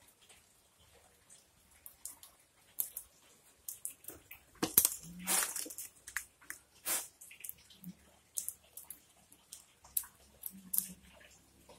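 Scattered small clicks, taps and crackles of plastic toy pieces and play dough being handled, with a louder crackling rustle about five seconds in.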